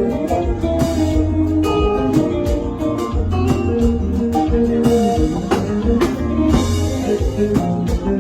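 Band music with a lead guitar solo over a steady drum beat and a deep bass line.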